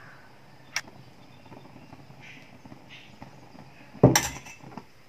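Kitchen clatter while frying: a small tap about a second in, then a louder knock of a utensil or bowl against the frying pan about four seconds in, with a faint hiss of hot oil between.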